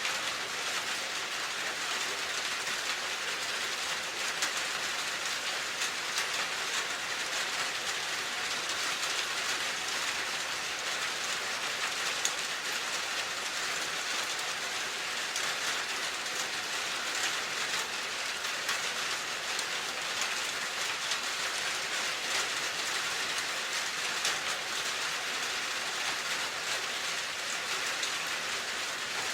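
Steady rain falling: an even, continuous hiss with faint scattered drop ticks.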